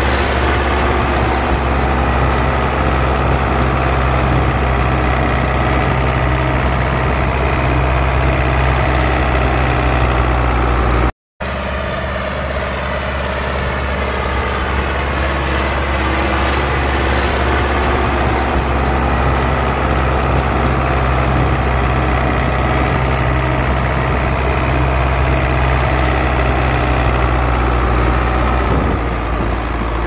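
Belarus 820 tractor's four-cylinder diesel running steadily under load while pulling a plough through the field. The sound breaks off for a moment about eleven seconds in.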